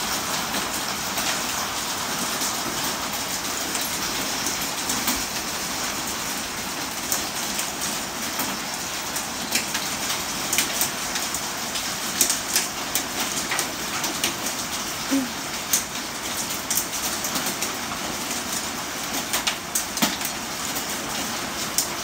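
Heavy rain from a rainstorm falling steadily, with sharp individual drops ticking on nearby surfaces, more often in the second half.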